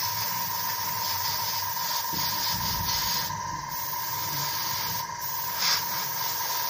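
Harder & Steenbeck Ultra airbrush spraying thinned enamel paint at about 20 psi: a steady hiss of air, cut off briefly twice, about three seconds in and again about five seconds in, as the trigger is let off, over a steady low hum.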